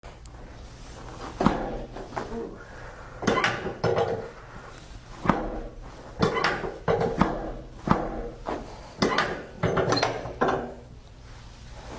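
Chiropractic adjustments: a series of about a dozen sharp cracks and knocks as joints are manipulated, coming at irregular intervals from under half a second to about two seconds apart.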